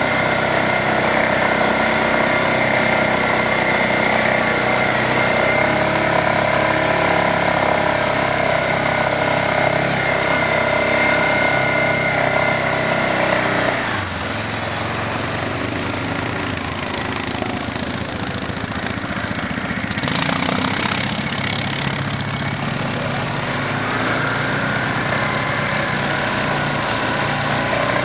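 ATV (quad) engine running steadily as the quad drives through a river, with water churning and splashing around it. About halfway through, the engine note drops and turns rougher.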